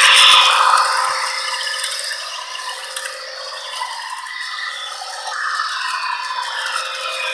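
Model train locomotive running along the track, a steady whirring, rattling clatter of its motor gearing and wheels. It fades to its quietest about halfway through, then grows louder again near the end.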